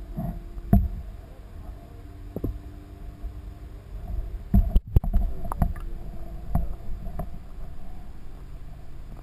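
Underwater camera audio: a low, muffled water rumble with a faint steady hum, broken by several dull knocks, the loudest cluster about halfway through.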